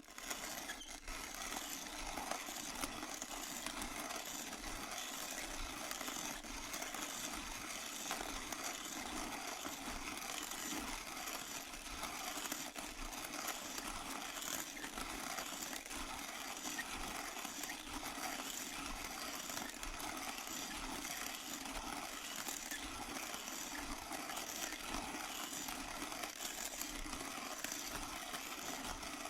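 Electric burr coffee grinder's motor running steadily, grinding beans with an even mechanical hum and a gritty grinding noise.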